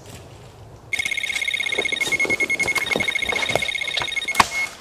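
Electronic carp-fishing bite alarm sounding a fast, continuous stream of high beeps, the sign of a fish taking line on a run. Knocks and clicks sound under it, and a thump comes near the end as the alarm stops.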